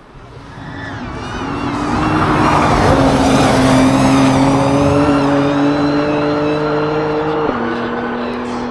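Race car engine at high revs on a hill-climb run, growing loud as it approaches over the first couple of seconds, then holding a steady high note. About seven and a half seconds in the pitch drops suddenly as it shifts up a gear.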